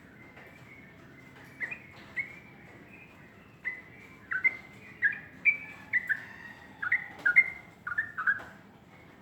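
Sooty-headed bulbul singing: a couple of short whistled notes, then a quick bubbly phrase of clear notes that jump up and down in pitch.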